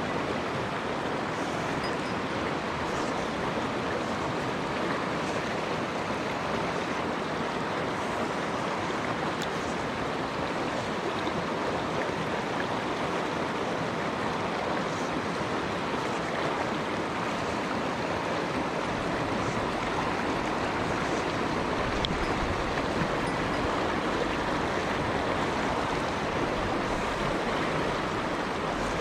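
Mountain stream water rushing steadily over rocks, with a constant even hiss and no break.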